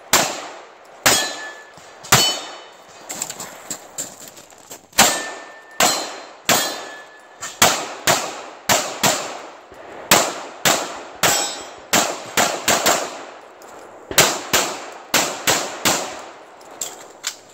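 SIG Sauer P320 pistol firing a long string of about two dozen shots, often in quick pairs, as the shooter engages targets through a stage. A few shots are followed by a short metallic ring, typical of steel targets being hit.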